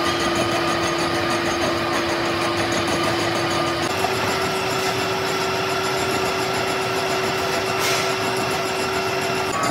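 Metal-working machine tool running steadily, with an even mechanical noise and a steady hum whose pitch shifts slightly about four seconds in; a short high hiss sounds near the end.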